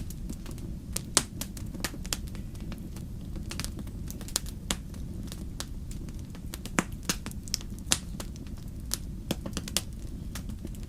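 Wood fire burning in a fireplace: irregular sharp crackles and pops, several a second, over a low steady rumble of the flames.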